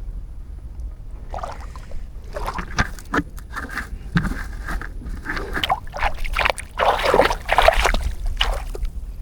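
Water splashing and sloshing at the edge of a pond in irregular bursts, starting about a second and a half in and getting busier and louder near the end, over a low steady rumble.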